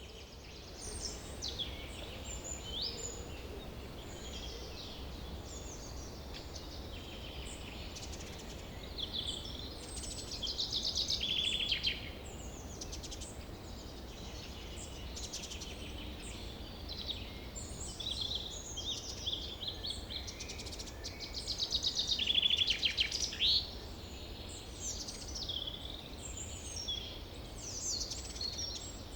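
Several birds chirping and singing over a faint, steady low rush from a waterfall. A loud rapid trill comes about ten seconds in and again past the twenty-second mark.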